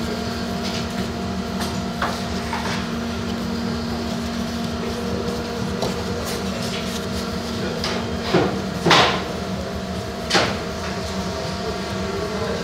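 Plastic knocks and scrapes as a round exhaust fan is worked by hand into a plastic ventilation pipe, with a few louder knocks in the last third. A steady hum runs underneath.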